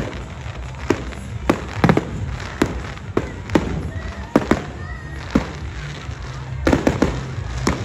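Fireworks bursting overhead in a string of sharp bangs, about one a second, with a quick cluster of several near the end.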